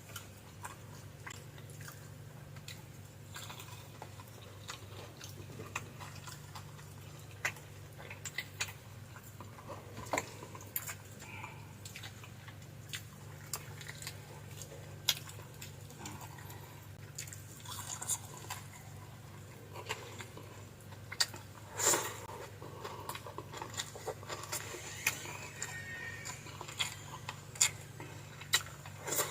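Close-miked eating sounds: chewing and biting on fried fish, with scattered short clicks and wet smacks over a steady low hum, and a louder burst of clicks about two-thirds of the way in.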